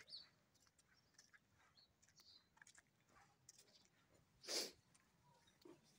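Near silence, broken once about four and a half seconds in by a short hissing puff of noise lasting about a third of a second.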